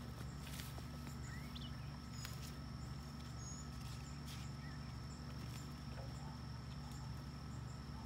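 Outdoor ambience: a steady low hum with a thin, faint high insect drone over it, a few short bird chirps and a few faint clicks.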